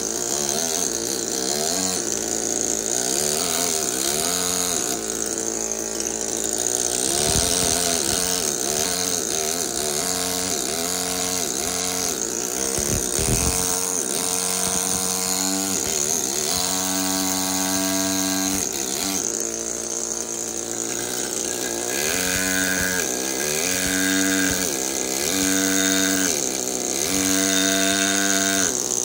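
Pneumatic carving hammer running against a steel chisel cutting into marble, a steady mechanical chatter whose pitch rises and falls repeatedly.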